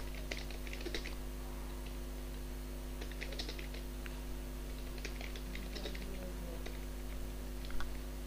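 Computer keyboard being typed on: short clusters of key clicks with pauses between them, over a steady low electrical hum.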